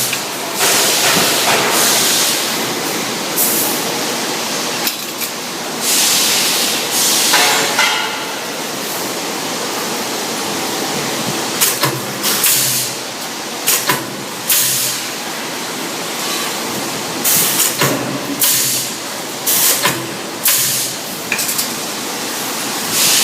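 Vertical T-type spot welding machine working through repeated welds: irregular short noisy bursts, roughly one every one to two seconds, over a steady running-machine noise.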